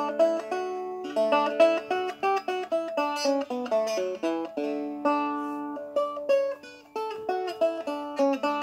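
Walnut strumstick dulcimer finger-picked without a plectrum: a plucked melody of quick notes over steady ringing drone strings, with a brief break about seven seconds in.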